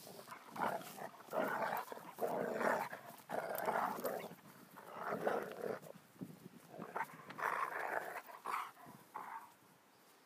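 Two dogs play-fighting, a large dog and a younger one, with rough growls and grunts coming in irregular bursts that die away about nine seconds in.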